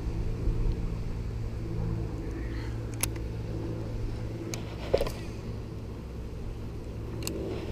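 A steady low mechanical hum like a running motor, with a few sharp clicks scattered through it.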